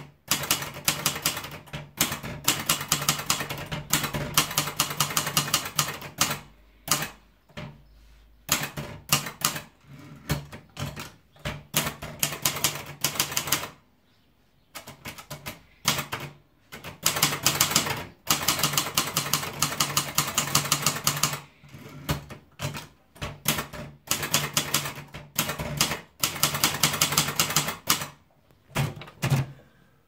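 Sperry Remington 10/50 portable typewriter being typed on: fast runs of key strikes clacking, broken by short pauses between runs.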